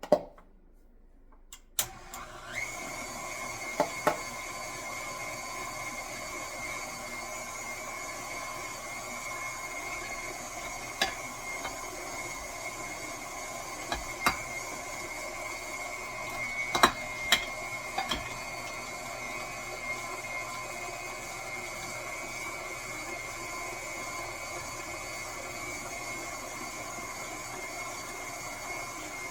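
KitchenAid stand mixer switched on about two seconds in: its motor spins up with a rising whine, then runs steadily, driving the metal food grinder attachment as ground lamb goes through a second time. A few sharp knocks sound over the motor.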